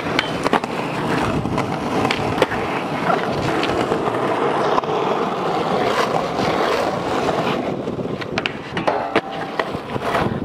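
Skateboard wheels rolling on concrete with a steady rumble, broken every second or two by sharp clacks of the board popping, landing and hitting the ground.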